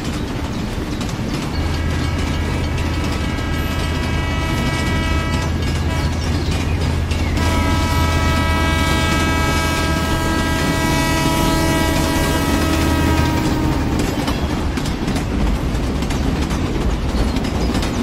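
Toy train running along its track with a steady hum and rattle, and two long train-horn blasts, the first about two seconds in and a longer second one starting about seven seconds in.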